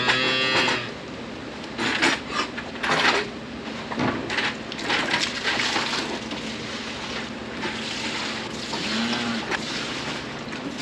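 Milk poured from a plastic jug into a calf's feeding pan, with scattered knocks and rattles of plastic buckets and crates.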